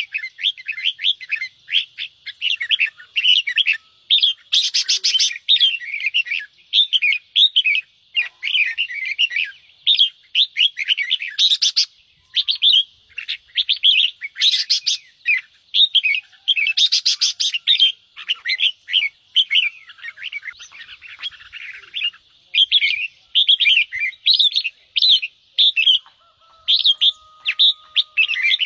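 Red-whiskered bulbul giving a long, rapid string of harsh, chattering 'ché' notes. These are the agitated, scolding calls bird-keepers play to rouse other bulbuls to fight and sing. A few brief crackling clicks cut in between the notes.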